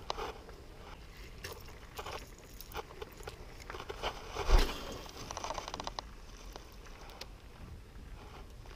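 Scattered clicks and scraping handling noises, with one sharp knock about four and a half seconds in, followed by about a second of rapid, even ticking.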